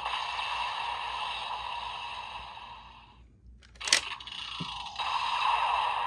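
Magnum Shooter 40X toy rifle's electronic firing sound effect from its built-in speaker, a hissing blast that fades out over about three seconds. A sharp plastic click follows as the toy is worked by hand, and another electronic sound effect starts about five seconds in.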